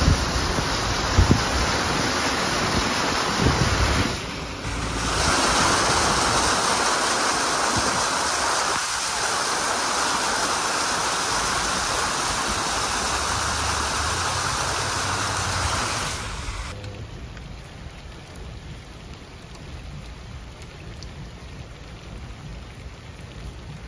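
Loud rushing and splashing of floodwater as a vehicle drives through a flooded street, pushing a bow wave, with wind buffeting the microphone in the first few seconds. About 17 seconds in it gives way to quieter, steady rainfall.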